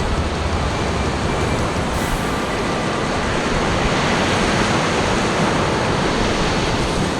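Ocean surf washing up on the beach, a steady rushing noise, with wind on the microphone.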